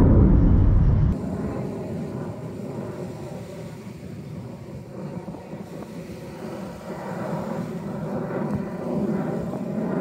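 F-35A fighter jet's engine heard from the ground. A loud low rumble breaks off suddenly about a second in, giving way to fainter, more distant jet noise that swells a little near the end.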